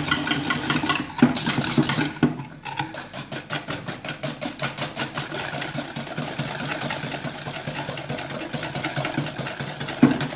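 Wire whisk beating egg yolks and sugar by hand in a stainless steel bowl: a fast, even rattle of strokes against the metal, with a short break about two seconds in.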